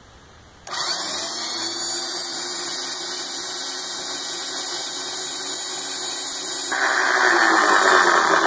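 A Craftsman 1/2-inch electric drill switches on under a second in, turning a pair of scrap motor rotors that squeeze and feed phone wire through to strip it. It runs steadily, then gets louder and harsher about seven seconds in.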